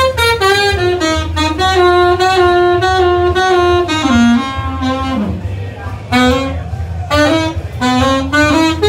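Jazz saxophone music: a melody of long held notes that step and slide in pitch, with a short break midway, over a low steady hum.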